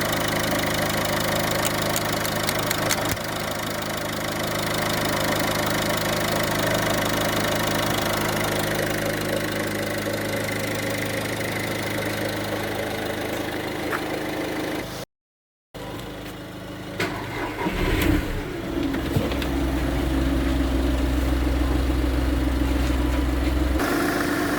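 Car engine idling steadily; after a brief cut, a car with a dead battery is cranked on jumper cables from a running car, catches about a few seconds later and settles into a steady idle.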